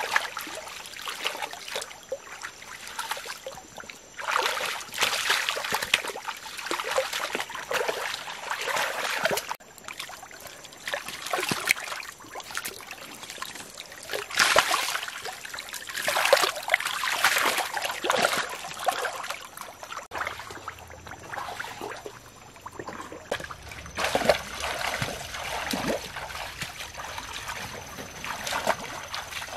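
Shallow muddy water splashing and sloshing in irregular bursts as hands grope through it and legs wade in it.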